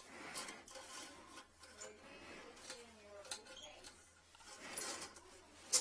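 Irregular scraping, rubbing and clicking of a thin metal retrieval rod worked inside a porcelain toilet, fishing for a toothbrush stuck in the trap, with a sharp knock near the end.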